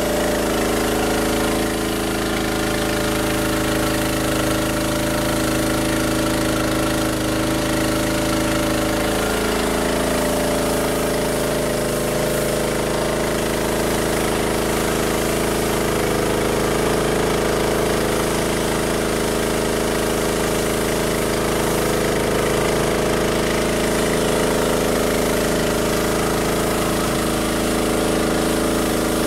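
Karcher 3000 PSI pressure washer's 9 hp Honda gas engine running steadily, with the high-pressure water jet from the spray wand hissing.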